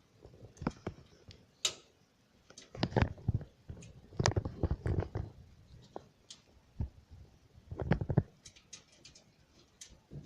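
Handling noise from a metal PC cabinet: scattered clicks and clusters of knocking and scraping as motherboard standoff screws are fitted into the case's motherboard tray.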